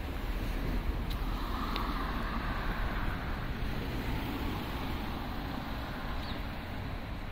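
Street traffic: a car passing by, swelling about two seconds in and then fading, over a steady low rumble.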